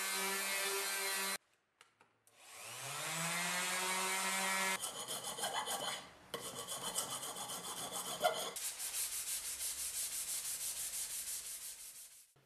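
Random orbital sander running on the steel hatchet head, stopping, then spinning back up to speed. About five seconds in it gives way to sandpaper rubbed by hand over the hatchet blade in quick back-and-forth strokes, about four a second.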